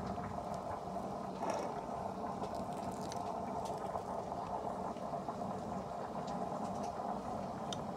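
A steady background hum and hiss, with a few faint light clicks scattered through it.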